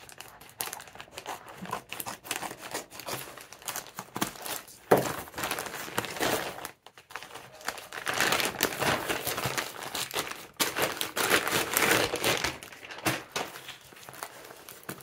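Plastic FedEx courier bag crinkling and tearing as it is cut with scissors and then ripped open by hand, with a louder stretch of rustling and ripping past the middle.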